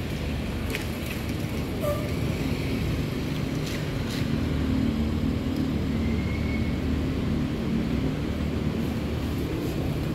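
A large coach bus's diesel engine running as the bus pulls slowly forward, a steady low rumble, with a few sharp clicks.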